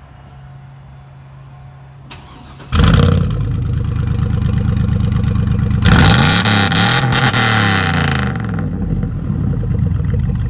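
A Chevy Silverado pickup's engine starts abruptly about two and a half seconds in and runs through its exhaust. It is revved hard for about two seconds around the six-second mark, then drops back to a steady idle.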